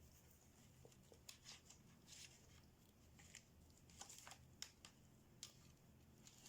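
Near silence, with faint, irregular scratchy clicks and rustles.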